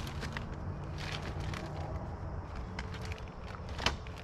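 Rustling and scraping as a tarp's back is pulled tight on its cord and stake, scattered short rustles over a low steady rumble, with a sharper crackle near the end.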